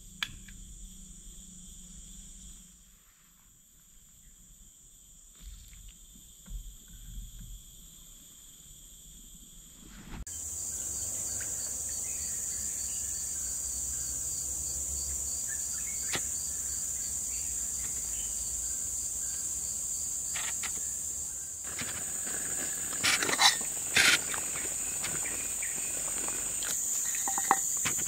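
Forest insects chirring in a steady high-pitched drone, which gets suddenly louder about ten seconds in. A few sharp clicks and knocks come near the end.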